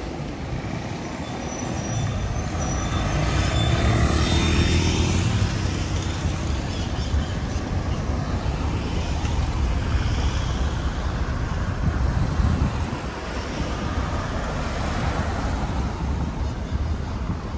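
City street traffic: cars driving past with a low engine and tyre rumble, one vehicle passing close and loudest about four seconds in.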